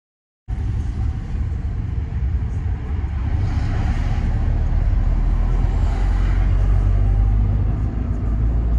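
Steady low rumble of road and engine noise inside a moving car's cabin, starting suddenly about half a second in after a brief silence.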